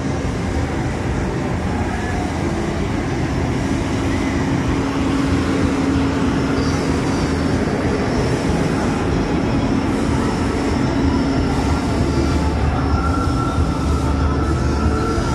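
Steady, dense fairground din: the rumble of running rides and machinery, with a steady low hum.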